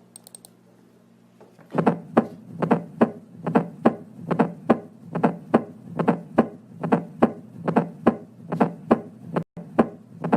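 Recorded heart sounds: a fourth-heart-sound (S4) gallop, its soft late-diastolic sound falling just before the first heart sound, heard as repeating groups of short dull thuds over a low hum, starting about two seconds in. S4 is the sign of a stiff ventricle, as in hypertensive heart disease.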